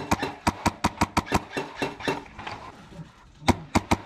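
Airsoft guns firing sharp cracking shots: a quick, uneven run over the first second and a half, a few scattered shots, then another fast cluster of four or five near the end.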